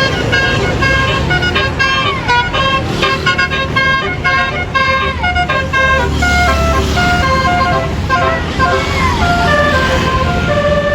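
Bus telolet horn, a multi-note air horn, playing a quick melody of stepped notes with a few sliding ones. Under it is the low rumble of a bus engine, which swells about six seconds in.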